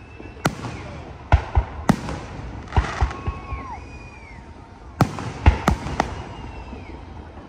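Aerial fireworks shells bursting overhead: about ten sharp bangs, some in quick clusters of two or three, each trailing off in a short rumble.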